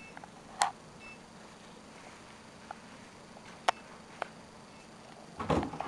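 Quiet room with a few short, sharp clicks scattered through, then a brief rustle near the end.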